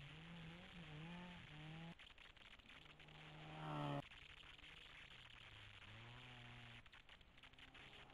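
Faint rally car engines at a distance, revving with the pitch climbing and dropping at each gear change. One rise about halfway through grows loudest, then cuts off suddenly.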